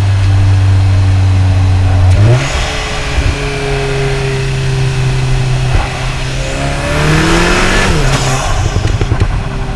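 Turbocharged EA888 gen 3 four-cylinder of a stage-1-tuned Cupra Ateca on stock intake and exhaust, heard through microphones at the intake and the exhaust while driving. The engine note steps to a new pitch about two seconds in, then climbs under acceleration with a rising turbo and intake whoosh, and drops away just after eight seconds.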